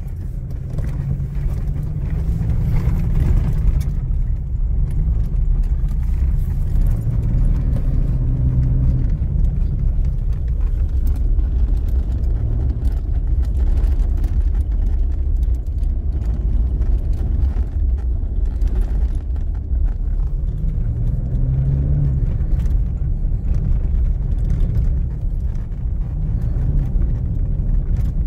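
Inside the cab of a 2021 Toyota Hilux driving over a rough dirt road, heard from under the dashboard: a steady low road rumble with many light knocks and rattles from the steering column. The knocking is a recurring steering-column noise on the 2021 Hilux, put down to play in the steering.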